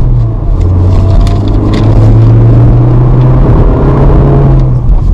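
Car engine and tyre noise heard from inside the cabin while driving on the open road: a steady low drone whose pitch shifts slightly a couple of times.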